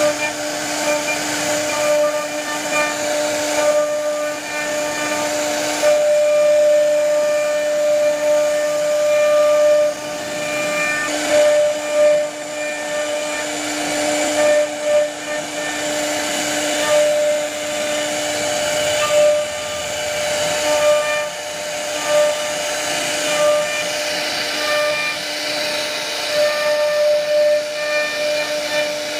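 CNC router spindle running with a steady whine over a hiss of cutting as its small carving bit routs a floral relief into a wooden door-frame board. The level wavers as the bit works along the pattern.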